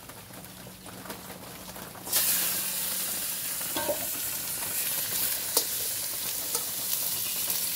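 Pork and chicken pieces frying in hot oil in a wok over a wood fire: a loud sizzle starts suddenly about two seconds in and keeps going, with a few clicks of the spatula stirring against the wok.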